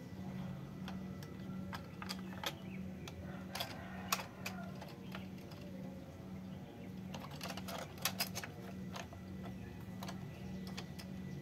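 Hard plastic toy train being handled and turned over in the hands, with scattered clicks and taps of plastic, a cluster of them in the middle and a quicker run past halfway, over a steady low hum.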